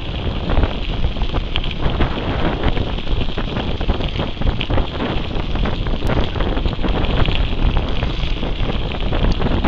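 Wind buffeting the microphone of a camera on a moving mountain bike, a loud steady rush with frequent small knocks and rattles from the bike and its tyres on the gravel track.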